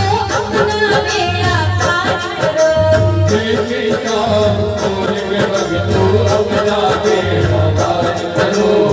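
Live devotional bhajan played through a PA system: a woman singing a wavering, ornamented melody over a band with a steady low drumbeat about once a second.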